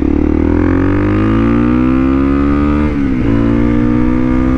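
Motorcycle engine pulling away from a stop in first gear, its revs climbing steadily. About three seconds in the revs drop and break off as the rider lets off the throttle and shifts up, then they climb again in the next gear.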